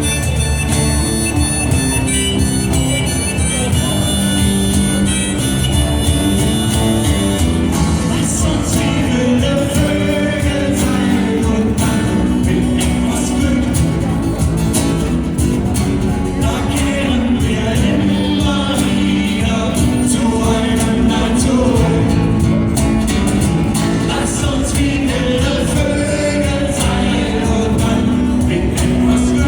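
A band playing a song live: held instrumental notes at first, then from about eight seconds in a voice singing over the band.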